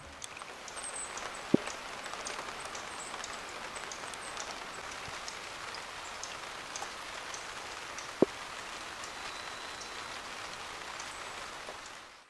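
Steady rain falling, a soft even patter scattered with small ticks of single drops, and two sharper taps about a second and a half in and about eight seconds in. It fades out near the end.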